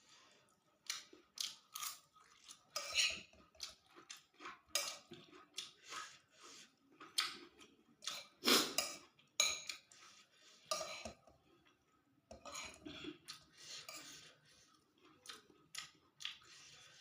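Cutlery clinking and scraping on a plate in irregular short strokes, mixed with chewing, while eating fried rice vermicelli with tofu.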